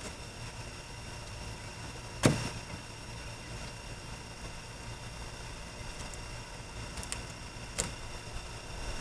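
Steady mechanical hum with faint steady tones, broken by one sharp click about two seconds in and a lighter click near the end.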